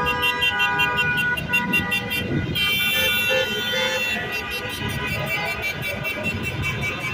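Several car horns honking over passing freeway traffic, some held long, with a loud new horn joining about two and a half seconds in.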